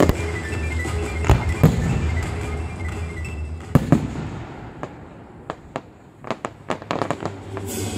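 Fireworks going off: sharp bangs and pops from exploding shells, with the show's music playing under them until it fades out about three seconds in. Two loud bangs follow just before the middle, then a scatter of smaller pops and crackles.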